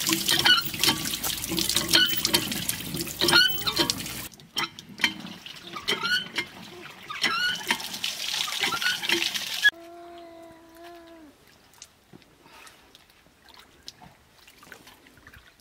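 Running, splashing water with short chirps over it, broken by two abrupt cuts. About ten seconds in comes one drawn-out animal call lasting over a second, then near quiet with light knocks.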